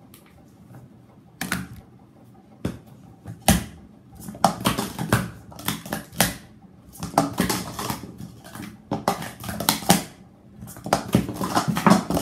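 Hard plastic sport-stacking cups (Speed Stacks) clattering and clicking against each other and the stacking mat as pyramids are stacked up and down fast. A few single knocks come first, then about four seconds in dense runs of rapid clatter start, in several bursts.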